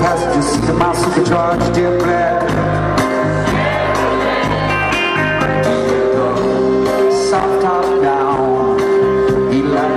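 Live band music with a male singer, recorded from within the crowd at a large concert. A long note is held through the second half.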